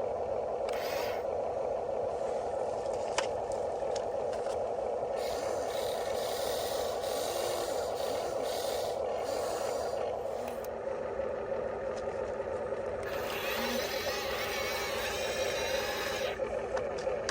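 Small electric gear motors of an RC construction model whining steadily, with dirt scraping and rattling as it digs and pushes soil; the scraping gets louder after about 13 s.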